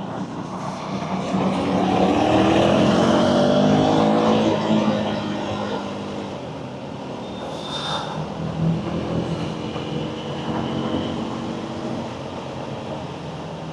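Motorcycle engine accelerating in traffic: its pitch climbs and the exhaust is loudest for a few seconds early on, then it settles into a steadier, quieter cruise.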